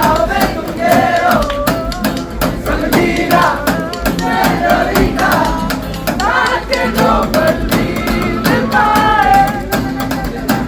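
Loud amplified live concert music: a sliding, wavering vocal line without clear words over a steady beat, with crowd noise underneath.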